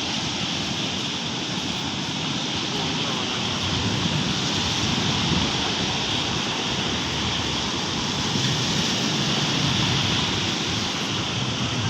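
Steady rushing of water with wind noise on the microphone.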